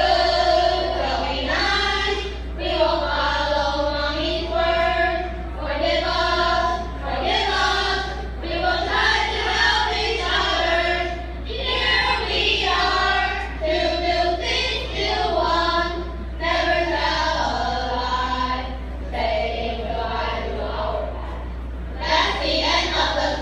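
A group of children singing together in a sung chorus, in phrases of about two seconds each with short breaks between them, over a steady low hum.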